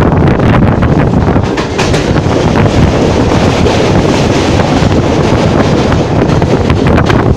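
Train running at speed, heard from an open coach doorway: heavy wind buffeting on the microphone over the steady rumble of the wheels on the rails, with a few sharp clicks near the end.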